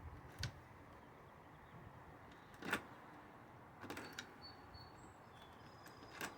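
A few sharp clicks and knocks from a keypad deadbolt being handled and worked, its lock body still loose on the gate, the loudest about two and a half seconds in.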